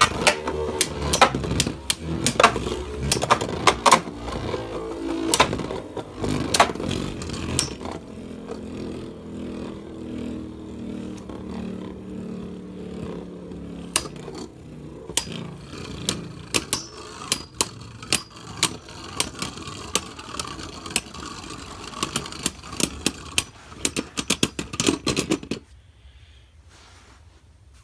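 Two Beyblade Burst spinning tops, one of them Dynamite Belial, battling in a plastic stadium: a fast run of sharp plastic-and-metal clacks as they collide, a steadier whir while they spin apart, then more clattering as they slow and wobble. The sound stops suddenly about three-quarters of a second before both come to rest.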